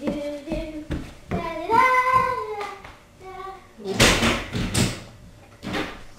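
A high-pitched voice making wordless calls that slide up and down in pitch, several in a row. About four seconds in comes a short burst of rustling or clattering with a few knocks.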